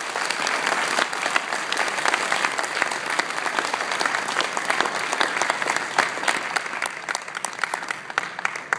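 Audience applauding after a speech, many hands clapping at once, tapering off near the end.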